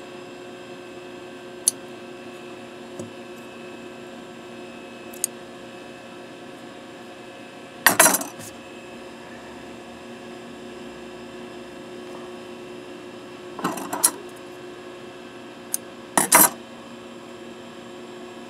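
Scissors snipping loose thread ends off a sewn fabric mask: a few sharp metallic snips, one about eight seconds in and two more toward the end, over a steady electrical hum.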